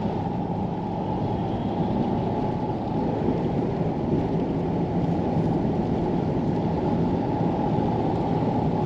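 Steady driving noise heard inside a pickup truck's cab: an even, deep rumble of engine and tyres on the road that does not change.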